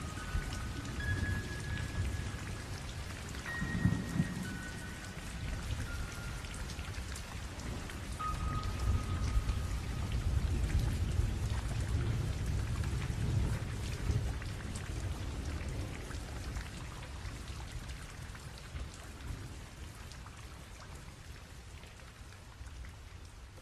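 Steady rain with low rolling thunder; the rumble swells around the middle and the whole sound fades toward the end. A few faint, high held notes sound in the first several seconds.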